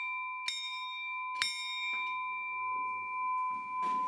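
Brass school bell struck by its clapper, rung by hand: two strikes about a second apart, each leaving a clear ringing tone that hangs on afterwards. The ringing signals the end of the school day.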